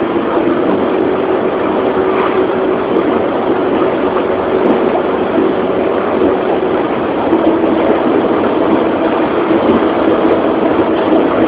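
Car driving at a steady speed: a constant engine drone with road and wind noise.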